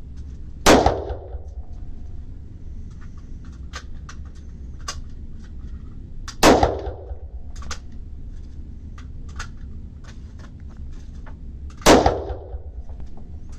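Three single gunshots at a shooting range, spaced about five and a half seconds apart, each with a short ringing echo. Faint clicks and knocks can be heard between the shots.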